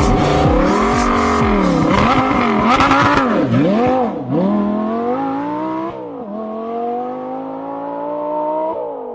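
Audi R8's V10 engine with a non-original exhaust revving up and down several times, then climbing steadily as the car pulls away. There is a gear change on its manual gearbox about six seconds in, and the sound fades as the car draws off.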